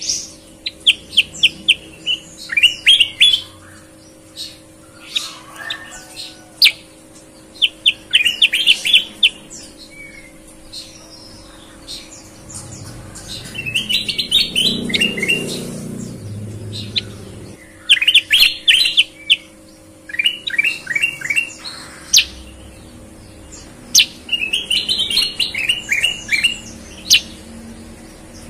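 Caged bulbuls (kutilang) singing: bursts of quick, clear chirping phrases made of rapidly repeated notes, a phrase every second or two. A low muffled noise runs under the song for a few seconds around the middle.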